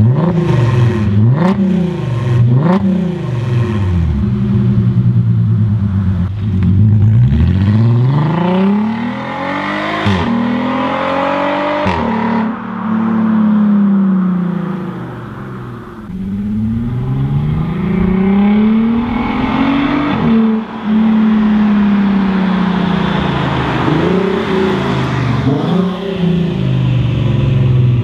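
VW Passat R36's VR6 engine through an exhaust with the centre resonator replaced by a straight pipe and an electric cutout valve open: a few quick revs, then hard acceleration with the pitch climbing and dropping sharply at each gear change. The sound fades near the middle, then builds again with more rising and falling revs.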